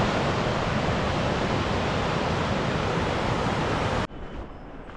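Steady, loud rush of running water, even and unbroken, that cuts off abruptly about four seconds in.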